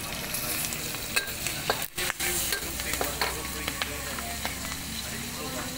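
Hot oil sizzling in a steel wok over a gas wok burner, with flames flaring in the pan and a steady low burner rumble underneath. A metal ladle and spatula scrape and clink against the wok now and then, and the sound drops out briefly about two seconds in.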